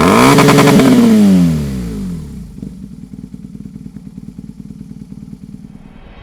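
BMW R 1200 RT's air/oil-cooled boxer twin, breathing through a Dominator aftermarket muffler, blipped once: the revs rise sharply, hold for about a second, fall back, and it settles into a steady idle.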